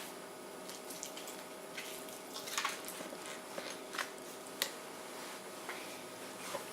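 A spoon scooping diced avocado out of its skin: soft, faint scraping with a few sharp light clicks, the clearest about two and a half, four and four and a half seconds in.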